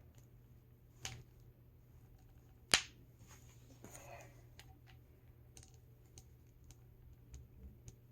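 Scattered light clicks and taps of a small plastic fashion doll and its parts being handled, with one sharp click a little under three seconds in and a smaller one about a second in.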